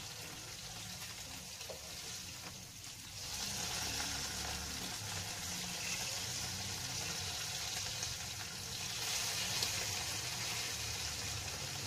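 Crispy anchovy fritters (tortang dilis) sizzling in hot oil in a pan, with a steady hiss. The sizzle grows louder about three seconds in and again near the end as they are turned with a spatula.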